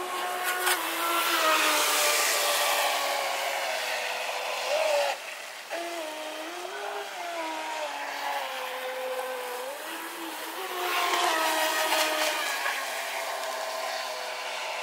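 Radio-controlled model boat's motor running at high revs, a pitched whine that falls and rises as the throttle changes, dropping off briefly about five seconds in and dipping again near ten seconds.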